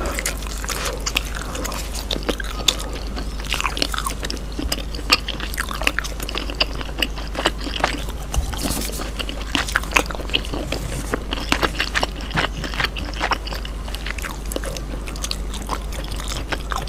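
Close-miked eating of grilled cheese: continuous biting and chewing with many small, irregular crunchy and wet mouth clicks, over a steady low hum.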